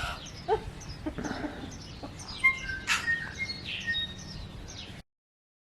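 Forest birds singing: many short, varied chirps and whistles from several birds, cutting off abruptly about five seconds in.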